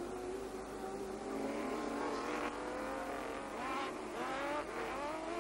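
Several Turismo Carretera race cars coming up a straight at speed, engines running hard. The engine notes overlap and rise again and again as the cars accelerate, most strongly in the second half.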